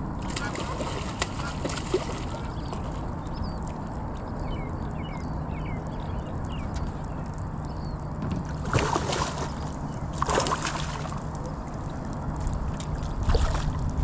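A hooked fish splashing at the water's surface beside the boat in three short bursts, the last near the end, over a steady low hum. Faint bird chirps come early on.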